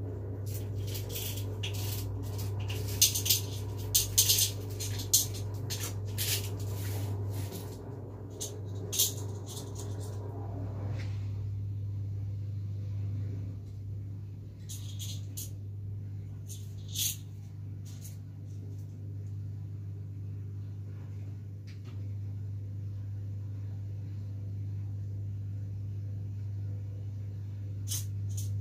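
Steady low electrical hum, with scattered small clicks and knocks of objects being handled on a kitchen counter; the clicks come thickest in the first ten seconds and a few more later.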